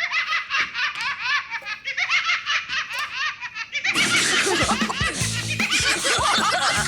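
Cartoon laughter let loose from a novelty can of giggles: rapid, high-pitched giggling, thin at first, then from about four seconds fuller, louder laughter over background music.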